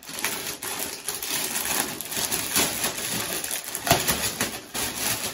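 Clear plastic packaging bag crinkling and rustling as it is handled and pulled open by hand, with many short crackles and a sharper crackle about four seconds in.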